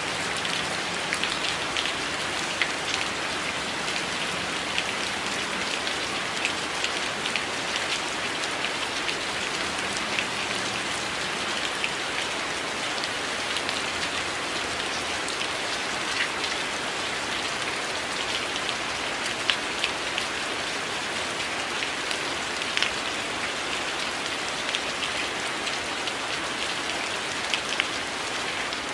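Steady rain falling on window glass, a constant hiss of rain with many scattered louder drop taps.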